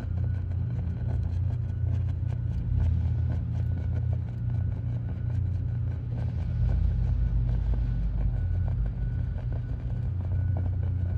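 A steady low mechanical rumble with fine crackling throughout, swelling a little about halfway through.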